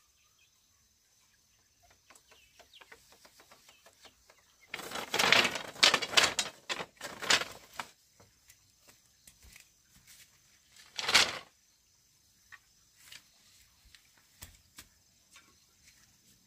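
Dry split bamboo slats clattering and rustling as a stack of them is gathered up, in a run of loud, irregular bursts, then one more short clatter a few seconds later. Light ticking comes before, and scattered small taps after.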